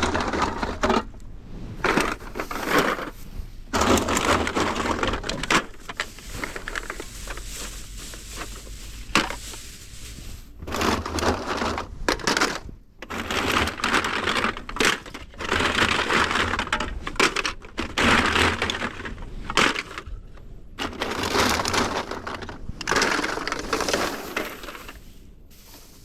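Crushed aluminum cans clattering as they are dumped into a bag, in bursts of a few seconds each with short pauses between.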